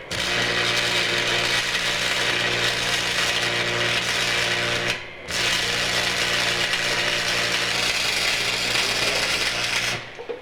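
A machine running steadily with a low hum and hiss. It cuts out briefly about five seconds in, starts again, and stops near the end.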